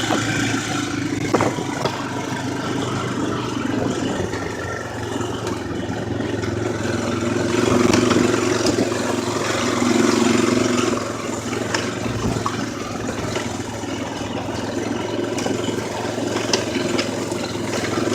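4x4 ATV engine running while riding, swelling louder twice around the middle, with scattered short clicks and rattles over it.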